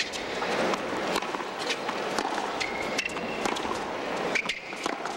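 Tennis rally on a hard court: sharp pops of racket strings hitting the ball and the ball bouncing, several times over, over steady crowd noise. Two brief high sneaker squeaks come a little past halfway.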